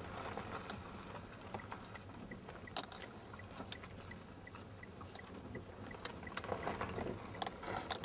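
Car driving slowly over a rough, broken dirt road, heard from inside the cabin: a steady rumble of tyres on grit with scattered clicks and rattles. There is a sharp knock a little under three seconds in and a run of louder bumps near the end. A faint high tick repeats about three times a second.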